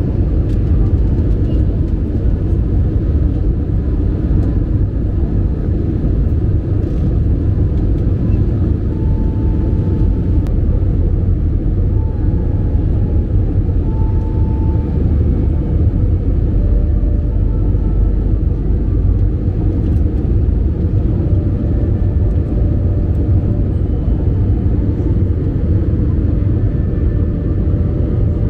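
Airbus A320-family jet airliner's cabin noise from a window seat over the wing: the steady, loud, low rumble of the turbofan engines and the airflow over the fuselage in flight, with faint steady hums above it.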